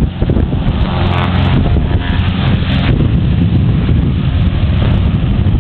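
Heavy wind buffeting the microphone, with the distant drone of a Britten-Norman Islander's twin engines and propellers at take-off power under it. The engine tone comes through most clearly between about one and three seconds in.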